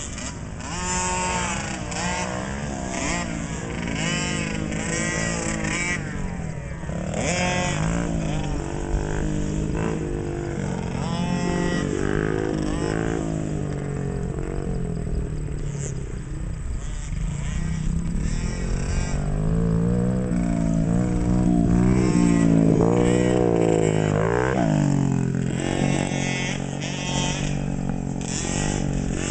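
Small 50cc two-stroke motocross bike engines racing round a dirt track, their pitch rising and falling again and again with the throttle. Several engines overlap, loudest about two-thirds of the way through.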